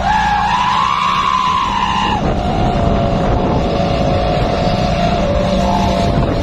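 Truck engine sound effect running and revving: its pitch climbs slightly, drops about two seconds in, then holds steady over a rough rumble.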